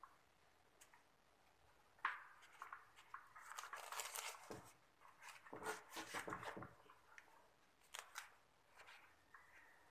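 Crackling, rustling handling noise as the split-type aircon's insulated pipe bundle and drain hose are worked by hand at the wall. It comes in a run of bursts from about two seconds in to about seven seconds, with a couple of sharp clicks about a second later.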